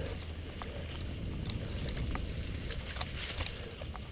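Mountain bike rolling along a leaf-covered dirt singletrack: a steady low rumble with scattered ticks and rattles from the tyres running over dry leaves and twigs and the bike shaking.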